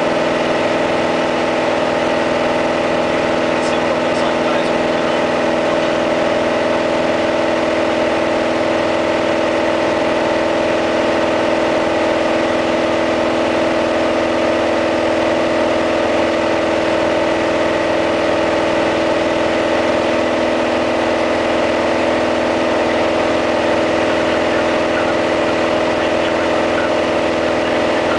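Piper PA-28-180 Cherokee's 180 hp four-cylinder Lycoming engine and propeller droning steadily in flight, heard inside the cabin, at a constant power setting.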